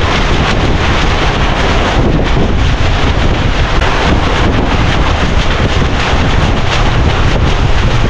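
Strong gusting wind buffeting the microphone: a loud, steady rumbling roar.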